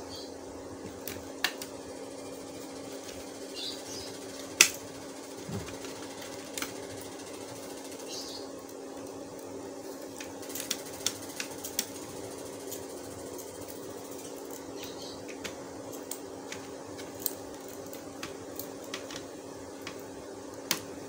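Scattered light clicks and taps of a screwdriver and small screws on a laptop's plastic casing as the screws are taken out, with one sharper click about four and a half seconds in, over a steady hum.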